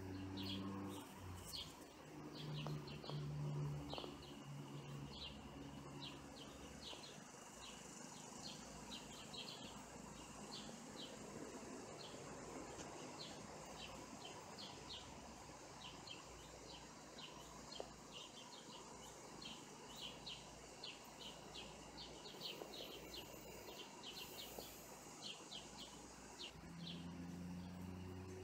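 Small songbirds giving short chirps over and over, with a faint steady high hiss behind them. A low droning tone sounds during the first few seconds.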